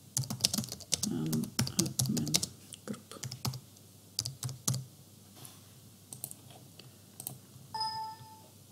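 Typing on a computer keyboard: rapid keystrokes for about five seconds, then a few scattered clicks.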